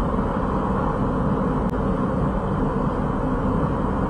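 Steady wind and road rumble heard from inside a Daihatsu Copen GR Sport driving with its roof open. One brief click about a second and a half in.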